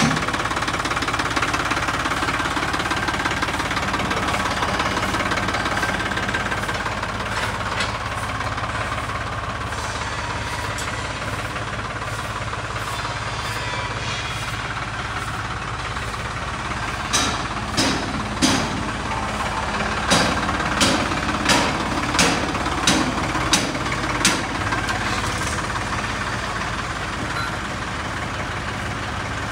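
Tractor diesel engine running steadily. A little past halfway comes a run of about ten sharp knocks over some seven seconds.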